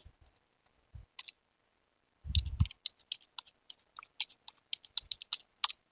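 Keystrokes on a computer keyboard: short irregular clicks, with a louder knock about halfway through. The typing is an IP address being entered into a browser's address bar.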